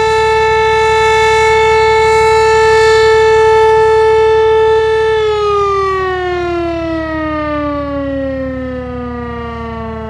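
A siren holding one steady pitch, then slowly winding down in pitch from about halfway through.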